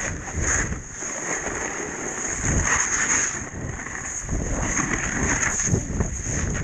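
A snowboard ploughing through deep powder, snow spraying over the camera, with wind buffeting the microphone as an uneven rumbling hiss.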